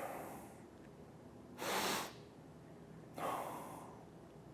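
A man breathing deeply and slowly from the belly (diaphragmatic breathing): soft, airy breaths roughly every second and a half, three in all, each swelling and fading.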